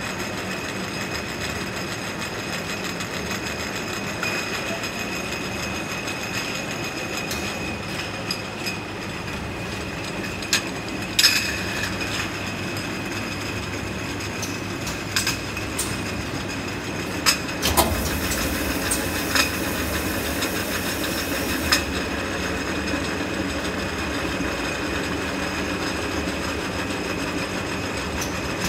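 Jar-washing machine running with a steady rattling mechanical noise, water spraying onto upturned glass jars, and the jars clinking sharply now and then as they move along the conveyor. A little past the middle a higher hiss comes in for about four seconds, then stops.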